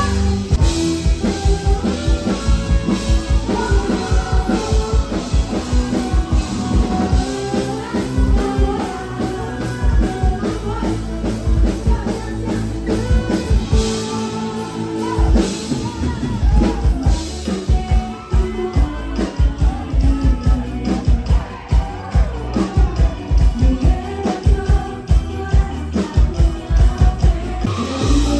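Live band music played loud through a PA, a singer's voice over a drum kit and bass with a steady beat.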